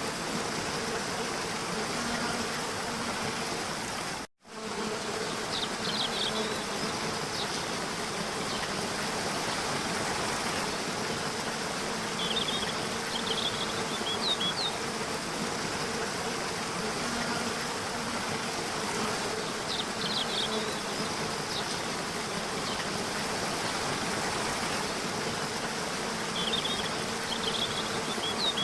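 Waterfall rushing steadily, with a faint steady hum under it and short bird chirps that recur every few seconds. The sound cuts out for a split second about four seconds in.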